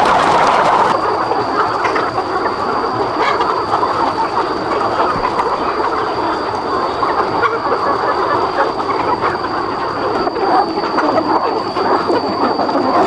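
A large flock of chickens clucking and chattering at once in a dense, steady din, with a thin, steady high whine joining about a second in.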